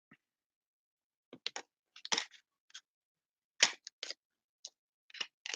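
A dozen or more short, irregular clicks and taps, starting about a second in.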